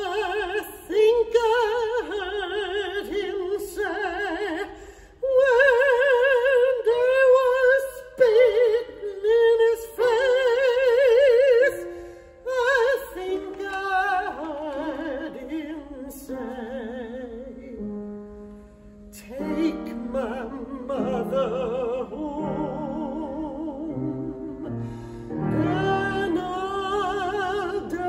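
A single high voice singing in a classical, operatic style, with a wide vibrato on long held notes, over quieter instrumental accompaniment.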